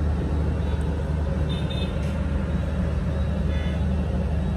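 Steady drone of dense street traffic at a busy intersection, mostly motorbikes with some cars.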